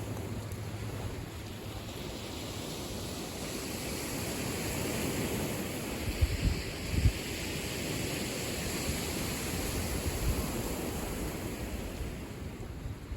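Lake Michigan waves washing on the shore in a steady rush that swells and eases. Wind buffets the microphone with a few low thumps about halfway through.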